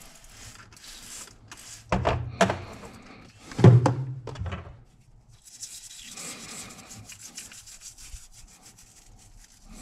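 A small brush scrubbing the metal body of a Honda Shadow 1100's hydraulic clutch master cylinder while it is cleaned out. Light handling clicks and two heavier knocks come in the first half, and the scrubbing runs steadily through the second half.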